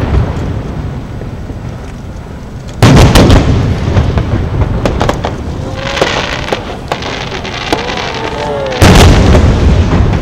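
Fireworks aerial shells bursting: two loud booms about six seconds apart, each followed by a rumbling echo, with fainter pops between.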